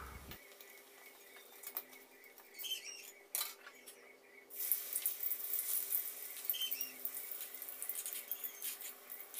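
A few light clinks of a spatula against a wok, then, from about halfway through, a steady high sizzle with small crackles as battered tempe fries in hot oil.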